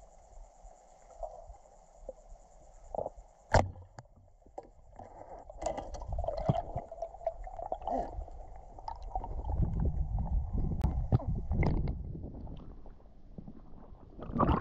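Water sloshing and gurgling around a camera in the lake, sounding muffled, with a sharp knock about three and a half seconds in and a louder low rumble from about nine to twelve seconds.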